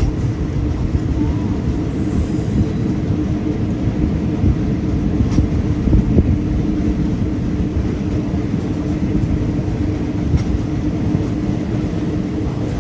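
Diesel-hauled passenger train running on the rails: a steady, unbroken rumble with a constant low tone under it.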